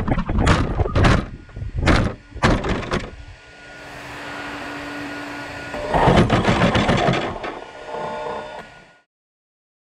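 Twin-motor Arrma Mojave RC car tumbling over grass after a crash at speed: a string of hard knocks and thuds over the first three seconds, then the car at rest with a quieter steady noise and faint hum, a louder rushing stretch, and the sound cutting off abruptly near the end.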